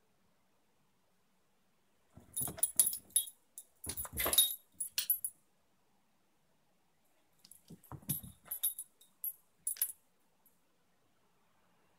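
Small dog's collar tags jingling in two bursts of quick metallic clinks, about two seconds in and again about seven and a half seconds in, as the dog moves and pokes at the bed skirt.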